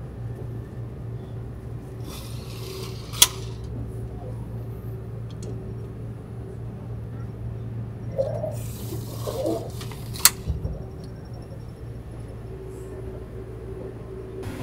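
Steady low hum of a train car's interior. Twice, about seven seconds apart, a short hiss ends in a sharp click.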